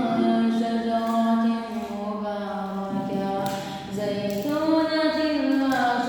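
Solo unaccompanied voice reciting the Quran in melodic tajweed style. Long held notes glide between pitches, with a short break about three seconds in before a new rising phrase.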